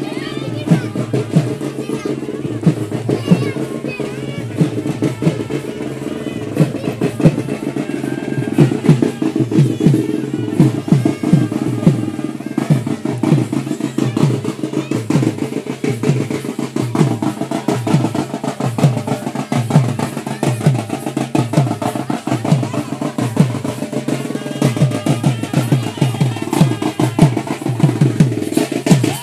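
Music with fast, continuous drumming, its low drum strokes dropping in pitch.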